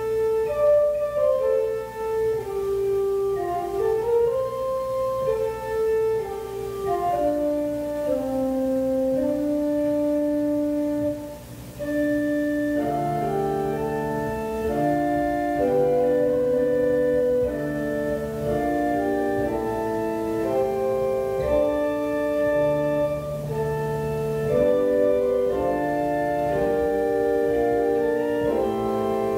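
Church organ playing slow offertory music: a soft melody of long held notes that fills out into fuller chords after a brief dip about twelve seconds in.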